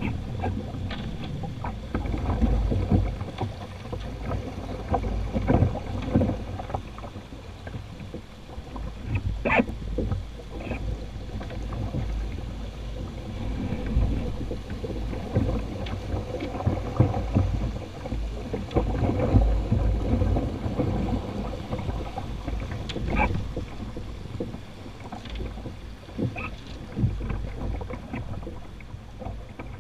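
Shallow river water rushing and splashing over rocks around a canoe being poled upstream, with a steady low rumble. A few sharp knocks sound several seconds apart as the wooden setting pole strikes stones and the boat.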